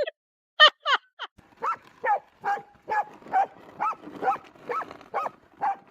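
A dog barking over and over in an even rhythm, about two to three barks a second, each bark rising and falling in pitch. Two louder, higher yelps come just before the run of barks starts.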